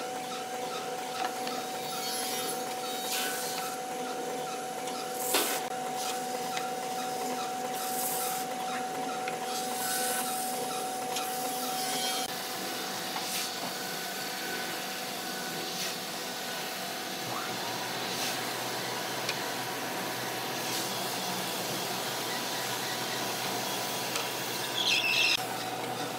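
Industrial wide-belt sanding machine running steadily with a steady hum, sanding hardwood boards fed through on its conveyor. There are a few sharp knocks, and the machine's low sound changes about two-thirds of the way in.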